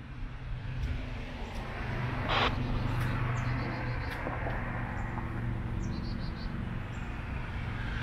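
Road traffic noise: a steady low engine hum under a swelling rush of passing vehicles, with a short burst of noise about two and a half seconds in. A bird chirps briefly twice.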